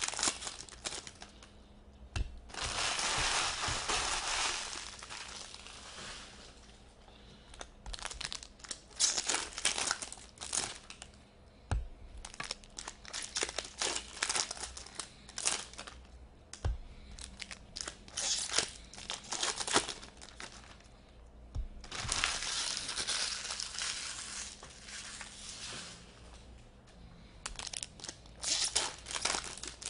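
Foil hockey-card pack wrappers crinkling and tearing open, in two longer spells about three seconds in and again about twenty-two seconds in. In between, cards are handled and riffled with short rustles and clicks.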